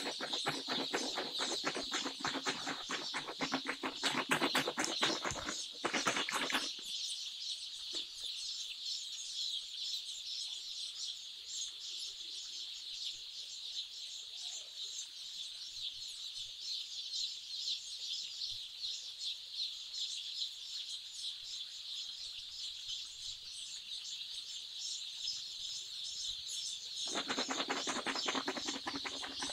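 A large flock of day-old broiler chicks peeping continuously, a dense high-pitched chirping chorus. In roughly the first seven seconds and again near the end, a coarser rustling noise sits under the peeping.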